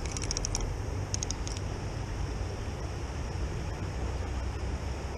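Spinning reel being cranked to bring in a hooked fish: rapid ticking from the reel in two short spells within the first second and a half. Under it, a steady rushing noise from the flowing river and wind.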